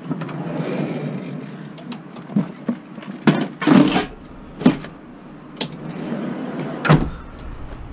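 Scrap metal being handled and loaded, a string of separate clanks and knocks with a louder one midway and a heavy thump near the end, after which a low rumble sets in.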